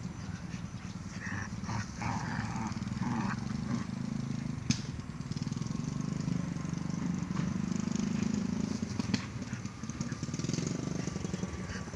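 Dogs growling in rough play, a low, rough, continuous rumble, with a single sharp click about five seconds in.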